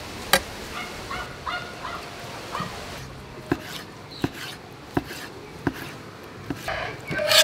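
Knife slicing fish balls on a wooden cutting board: sharp taps of the blade on the board, one near the start and then about one every three-quarters of a second from the middle on. Domestic fowl call in the background, loudest near the end.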